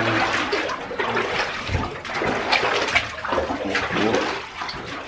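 People wading through water in boots, with irregular splashing and sloshing at every step.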